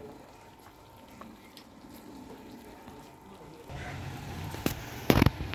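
A steel ladle knocks against a steel cooking pot: a light clink, then a louder, sharp clank near the end, after a rustle of handling.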